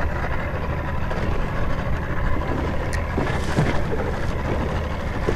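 Steady low rumble of the fishing boat's engine idling, with wind noise.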